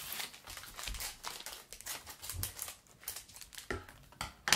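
Crinkling and rustling of Peeps marshmallow packaging being handled and opened, a tray sliding out of its box, with one sharper, louder crackle near the end.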